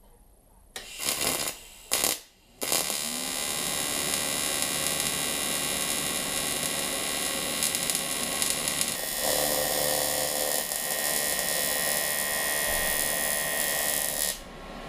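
TIG welding arc on a cast aluminium gearbox bellhousing, buzzing with the hum of AC welding current. Two brief arc starts about a second and two seconds in, then a steady weld run that stops suddenly near the end.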